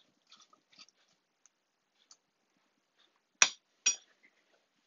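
Metal spoon in a saucepan of diced apples: faint soft stirring at first, then two sharp taps about half a second apart near the end, the spoon knocked against the pan.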